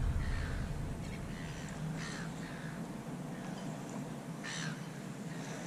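A bird calling several times in short calls, over a low background hiss.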